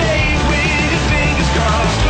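Rock music, loud and steady.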